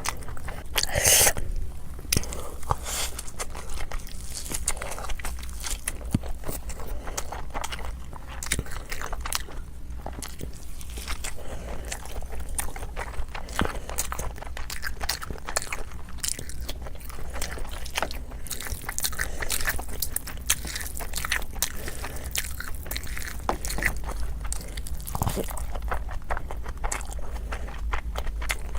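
Close-up eating sounds of someone biting and chewing chicken: irregular crunches and sharp mouth clicks, over a steady low hum.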